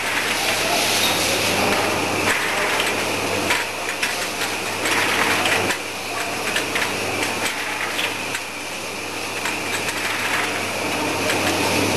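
Rotary bottle-feeding turntable of a liquid filling machine running with a steady motor hum, and frequent light, irregular clinks of small glass bottles knocking together and against the guides as they are fed onto the conveyor.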